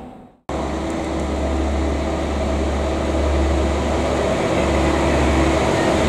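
Regiobahn S28 multiple unit pulling into the platform, its steady low drone starting abruptly about half a second in and slowly growing louder as it comes closer.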